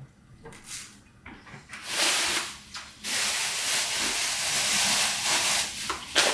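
Steady hissing noise. A short stretch comes about two seconds in, then a longer, louder, even stretch runs from about three seconds until near the end.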